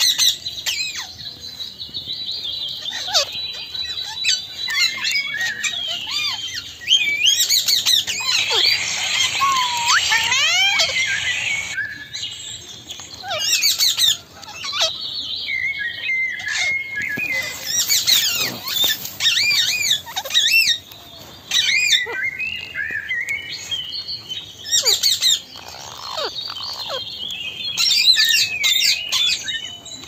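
Indian ringneck (rose-ringed) parakeets chirping and chattering: quick rising and falling chirps and short squawks that come in busy bunches with brief pauses between them.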